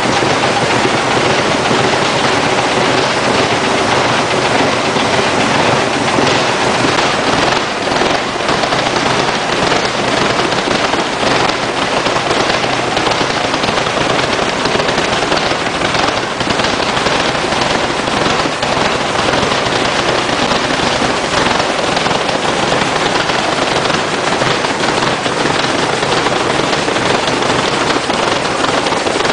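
Hino K13C inline-six turbo engine, converted from diesel to spark-ignited CNG, running steadily with a dense, rapid firing pulse.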